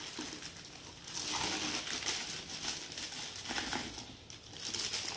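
Clear plastic wrapping crinkling as it is handled and worked off a stack of sport stacking cups, fullest from about a second in until past the three-second mark.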